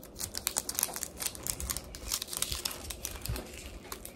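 Crinkly toy packaging being handled and pulled at: a dense, continuous run of sharp crackling rustles.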